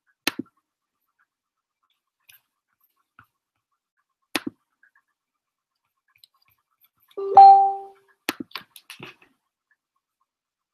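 Scattered sharp clicks, like small knocks or taps, with a short steady beep about seven seconds in and a quick run of small clicks right after it.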